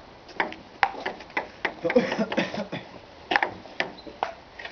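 Table tennis ball clicking back and forth in a rally, sharp ticks off paddles and table several times a second, with a short pause past the middle before the hits resume.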